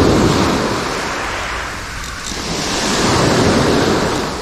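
Sea waves breaking and washing up the beach. Two surges of surf come about three seconds apart.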